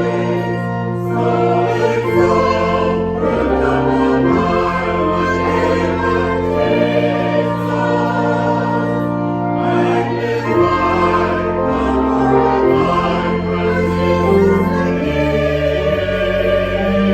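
Choir singing sacred music with instrumental accompaniment, in sustained chords over bass notes that change every second or two.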